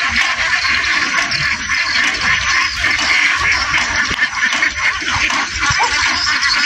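A large flock of ducks quacking all together, a dense and steady din of many overlapping calls.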